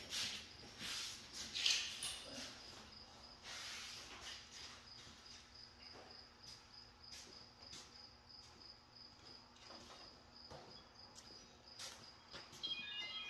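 Faint rustling, scraping and light knocks of a black rubber anhydrous hose being pulled off its roll and laid along an applicator toolbar, busiest in the first few seconds. A faint steady high-pitched tone runs behind it.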